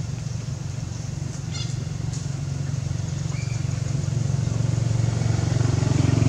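A motor vehicle engine running steadily off-screen, with a low hum that grows gradually louder as it approaches.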